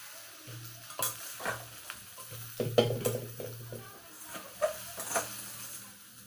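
Metal spatula scraping and knocking against an iron kadhai as fried soya chunks are scooped out, a handful of separate sharp scrapes and clinks.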